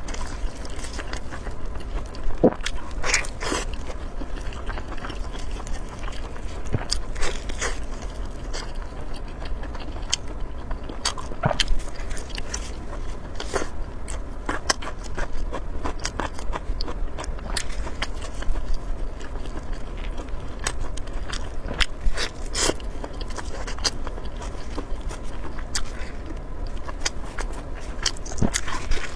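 Close-miked eating sounds: a person biting and chewing, with frequent short wet clicks and crackles at irregular intervals.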